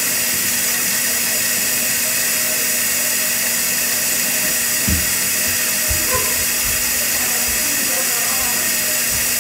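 Kitchen faucet running hot water, a steady close rushing hiss that doesn't change, with a dull knock about five seconds in.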